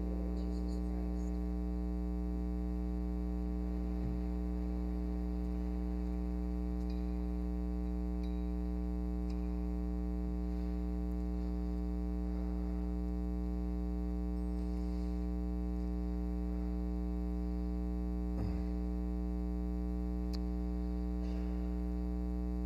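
Steady electrical mains hum with a stack of evenly spaced overtones running through the audio feed, with a couple of faint knocks.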